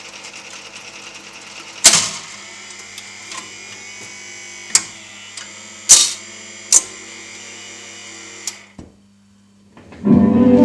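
Wurlitzer Atlanta jukebox record changer running, a steady motor hum and gear whir with several loud clacks as the mechanism pulls a 45 rpm single from the carousel, sets it on the turntable and brings the tone arm over it. The mechanism stops, and after a brief hush the record starts playing near the end.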